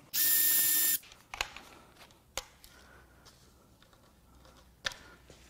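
Cordless electric ratchet spinning for about a second, running out a last missed bolt on the dipstick tube. A few sharp light clicks follow as the loosened metal parts are handled.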